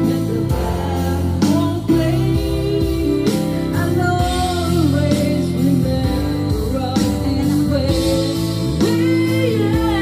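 Karaoke: a young singer's voice through a microphone, carrying a melody over an instrumental backing track.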